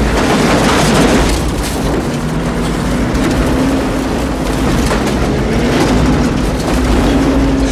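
Film soundtrack of a Jeep pickup truck being driven hard over rough ground amid dense storm noise and a heavy low rumble, with a steady low drone underneath.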